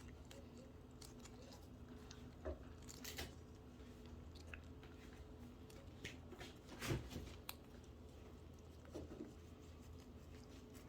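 Cat chewing treats: faint scattered crunches and clicks, with a louder one about 7 s in, over a low steady hum.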